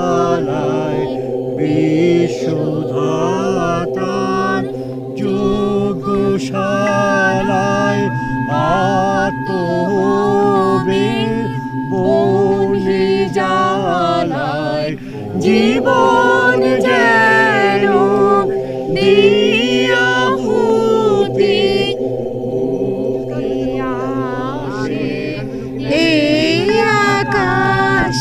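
A man singing a Bengali song solo in a slow, chant-like melody, over a steady drone.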